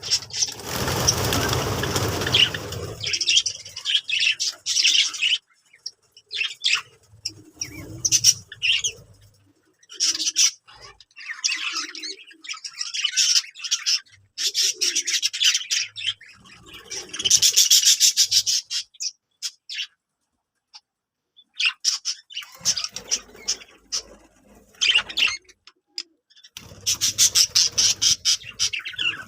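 Budgerigars chirping and chattering in short, busy bursts with brief silent gaps between them. A louder rustling burst fills the first three seconds.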